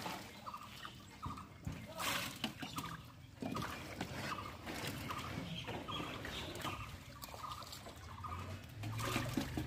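Water splashing and trickling as a plastic basket of small live fish is dipped and handled in shallow water, with irregular splashes. Short faint calls repeat in the background.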